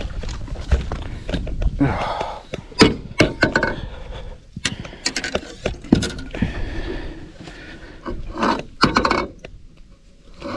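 Irregular knocks, thumps and scrapes of a landing net holding a big black drum being hauled aboard a boat and set on its carpeted deck, with the fish handled in the net. The louder knocks come in clusters about three seconds in and near the end.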